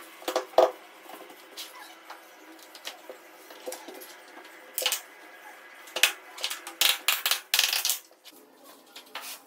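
Laminate planks and tools being handled and clicked into place on a floor: scattered sharp knocks and clatters, with two loud ones right at the start and a quick run of several about six to eight seconds in.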